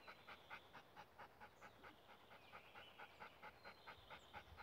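A dog panting quickly and faintly, about five breaths a second: an old dog tired out by the heat.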